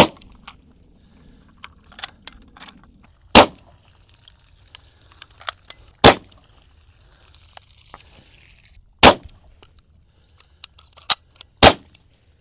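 AEA BinTac M50 .45-calibre PCP air pistol firing five sharp shots about three seconds apart through a chronograph, with fainter clicks between the shots. The velocity falls from shot to shot, about 533 down to 399 fps, as the pistol's air runs down straight out of the box.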